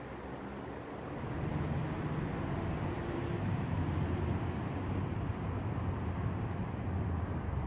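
Road traffic on a nearby street: a steady low rumble of passing vehicles that grows louder about a second in and holds.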